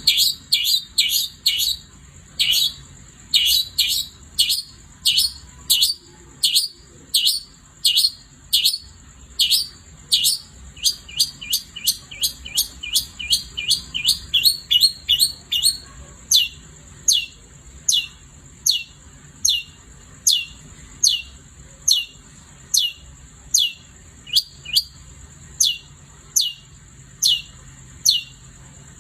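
Long-tailed shrike (cendet) singing a long run of sharp, downward-sweeping notes, about two a second. The notes quicken in the middle, then slow to evenly spaced single notes. A steady high-pitched tone runs underneath.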